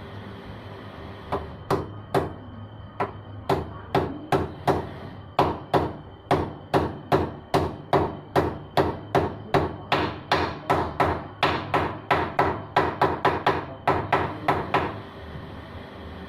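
Repeated hammer blows during motorcycle repair work. A few scattered strikes come first, then a steady run of about two to three blows a second that quickens a little before stopping near the end.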